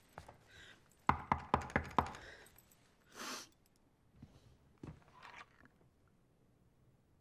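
Five quick knuckle knocks on a wooden apartment door, evenly spaced and loud, followed by a short rush of noise and a few faint clicks and rustles.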